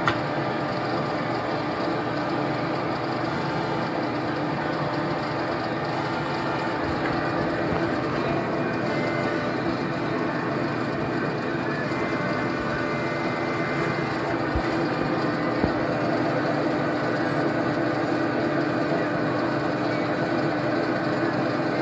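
Metal lathe running steadily, its spindle turning a workpiece being faced, a constant machine hum made of several steady tones. A single light knock about fifteen seconds in.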